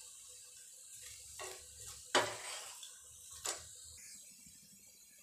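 A steel spoon clinking three times against the pan and ghee bowl as ghee is spread over a paratha frying on the pan, the second clink the loudest, over a faint sizzle.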